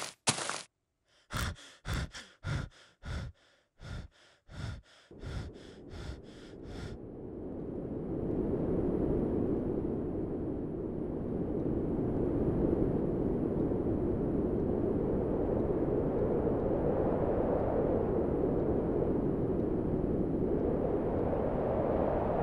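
A quick run of about a dozen cartoon footsteps that grow fainter as they go, then a steady rushing noise that swells up over a few seconds and holds.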